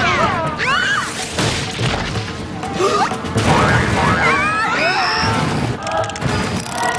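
Cartoon action soundtrack: music under a run of crashes and impacts, with high sliding squeals or cries that fall in pitch near the start and rise and fall again around the middle.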